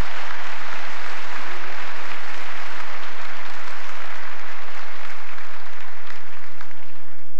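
A large theatre audience applauding steadily, a dense clapping that thins out near the end.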